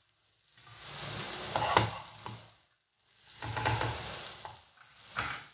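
A spatula stirring and scraping a pan of creamy spinach and parmesan sauce as it sizzles on the hob, in two stretches of about two seconds each with sharp clicks of the utensil against the pan, and a short knock near the end.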